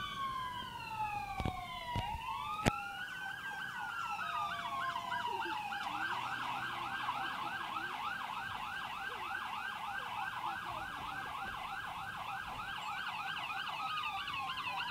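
Fire apparatus siren sounding a slow rising and falling wail, switching about five seconds in to a fast yelp of about three or four sweeps a second, and going back to a slow falling wail near the end. A few sharp knocks sound in the first three seconds.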